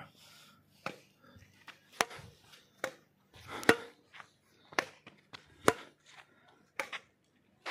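Badminton rackets striking a shuttlecock back and forth in a rally: a sharp pock about once a second, seven or eight hits.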